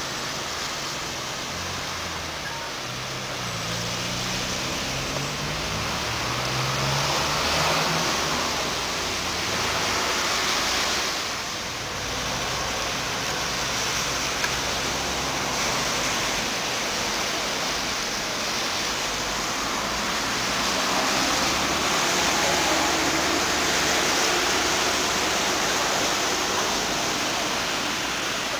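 Steady outdoor hiss of traffic on a wet road, swelling twice, with a vehicle engine's low hum passing a few seconds in.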